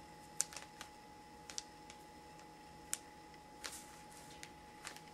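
Light clicks and taps of a finger typing on a ZTE Score smartphone's touchscreen keyboard: about ten short, sharp clicks at an uneven pace.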